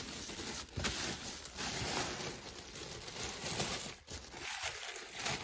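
Tissue paper wrapping rustling and crinkling as hands unfold it, with a brief lull about four seconds in.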